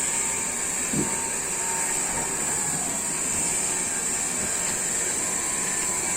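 Steady background hiss, strongest in a high band, with one faint knock about a second in.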